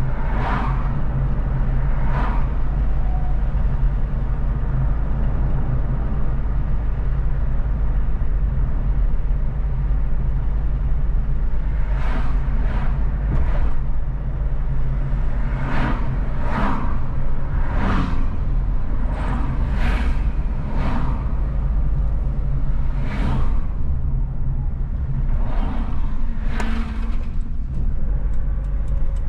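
Car driving at highway speed: a steady low rumble of engine and tyres on the road, with short swishes coming now and then in clusters about a second apart from roughly twelve seconds in.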